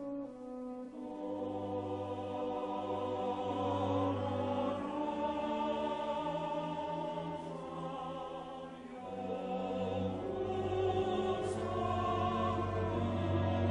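Background music: slow classical choral music, voices holding long notes over a deep sustained bass.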